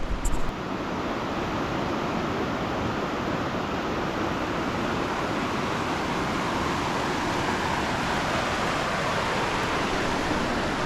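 Rushing creek water, a steady even hiss of fast-flowing whitewater. There is a short knock just after the start.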